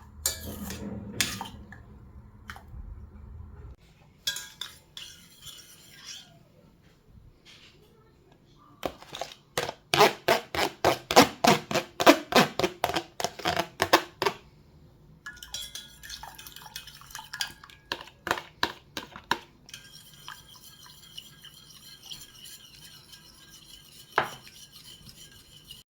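Kitchen utensil clinking against dishes and a bowl: scattered clicks, then a run of quick, even strokes of about four or five a second in the middle, as in stirring or whisking a mixture in a bowl, and lighter clinks near the end.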